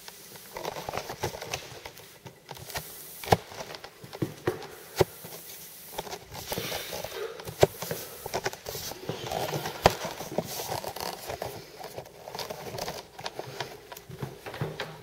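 A pole with a T-shaped bar on its end being handled and moved about low over a floor: irregular rustling and scraping, with a few sharp knocks, the loudest coming about a third and about halfway through.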